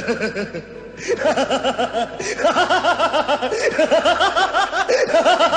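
A man laughing loudly in a long, rapid string of ha-ha pulses that starts about a second in, after a brief burst at the start.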